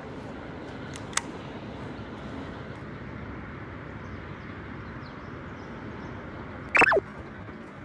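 Steady outdoor background noise, with a sharp click about a second in and, near the end, a short loud sound that drops quickly in pitch.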